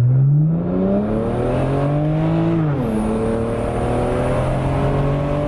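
Car engine accelerating under load, its pitch climbing steadily, then dropping sharply about three seconds in at a gear change before it pulls and climbs again.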